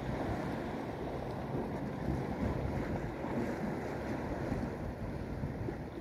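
Propeller plane's engine droning overhead as it flies past, mixed with wind buffeting the microphone.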